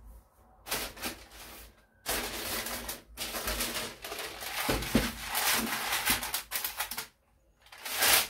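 Rolling pin and hands working Flammkuchen dough on a floured worktop: scratchy scraping noise in several stretches broken by short pauses.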